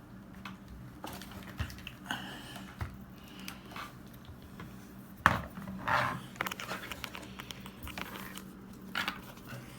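Handling noises: scattered clicks, small knocks and rustles, with one sharp knock about five seconds in, over a steady low hum.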